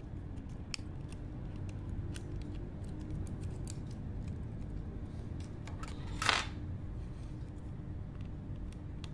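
Small clicks and taps of a Sony Reon Pocket 2's plastic housing and circuit board being handled during disassembly, with one brief, louder scrape about six seconds in, over a low steady hum.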